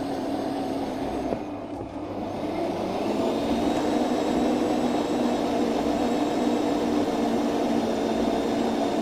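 Electric stand mixer's motor running while its dough hook kneads bread dough in a steel bowl. The hum gets louder and fuller about three seconds in.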